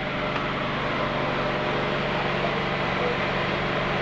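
A compressor running steadily: an even mechanical hum with a hiss over it.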